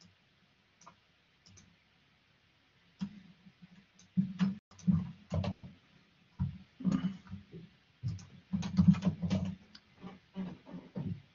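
Typing on a computer keyboard: quick, irregular key clicks that start about three seconds in and carry on, with short gaps between runs of keystrokes.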